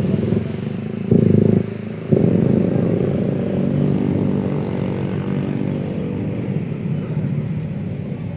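City street traffic: a motor vehicle engine passes close, with a short loud burst about a second in, then a steady engine hum that slowly fades.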